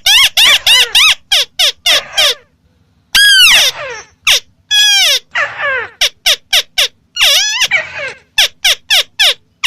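White-browed crake (Amaurornis cinerea) calling loudly: rapid series of harsh, nasal notes, each dropping in pitch, given in bursts with short pauses between them.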